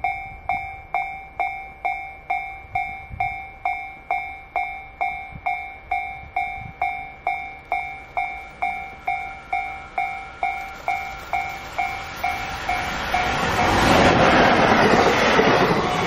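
Level-crossing warning bell ringing steadily, about three strokes a second. From about 12 seconds in, a container freight train hauled by an EF65 electric locomotive arrives and passes, and the loud rush of its wheels and wagons drowns out the bell.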